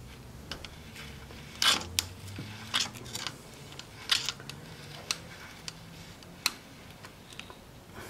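Screwdriver blade clicking and scraping against the slots of a wheel-bearing spanner nut as the nut is wound into a forklift's front hub. The clicks are sharp and irregular, about a dozen in all, with the loudest about two seconds in.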